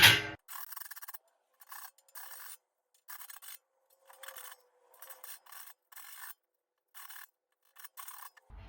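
Hand file rasping over the edge of a freshly punched hole in a metal brewing kettle, taking off the burrs left by the cut: about ten short, uneven strokes with pauses between them.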